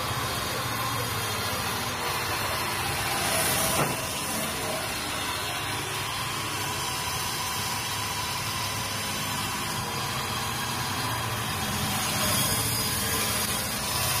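Horizontal log saw running and cutting along a log: a steady machine noise with a faint steady tone, one sharp click about four seconds in, and a swell in loudness near the end.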